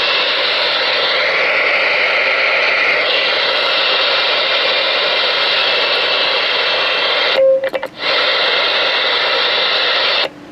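Receiver static hissing steadily from a Galaxy DX-98VHP ten-meter radio's speaker. It breaks off briefly about seven and a half seconds in with a short beep, then goes quiet near the end as a station keys up.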